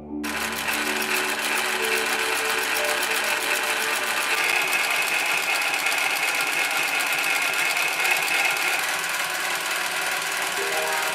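Global EM 119-2 N-P picot industrial sewing machine, with two needles, two rotating hooks and a puncher, starting abruptly about a quarter second in and running at speed. It makes a fast, even run of stitch strokes while it punches and overedges a row of holes in shirt fabric.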